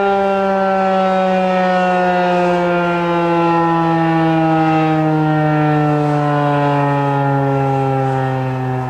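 Federal Signal 2001-130 electromechanical warning siren sounding, its pitch gliding slowly and steadily down the whole time as the rotor slows, the siren winding down.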